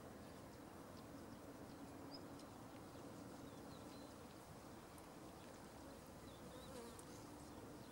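Near silence: faint outdoor ambience with a low buzz that comes and goes, and a few faint, short high chirps.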